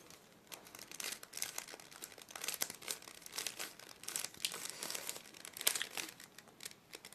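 Plastic Rubik's cube being turned by hand: a dense, irregular run of small clicks and clatters as its layers are twisted.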